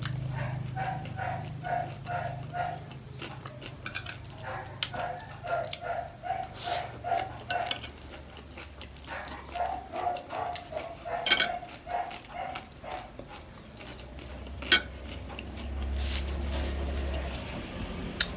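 Close-miked eating of panipuri: runs of quick, rhythmic chewing with scattered sharp clicks of a spoon or dish, one louder clink near the end.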